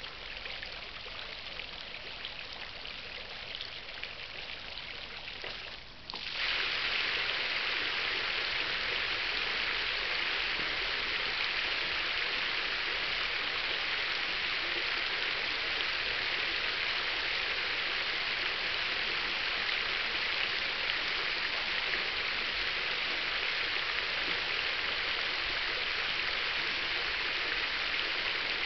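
Garden fountain's water jets splashing steadily into the basin. About six seconds in, the sound dips briefly and then becomes much louder as the electronic control switches from the low nozzle-ring jets to the full spray ring with the central brass cascade nozzle.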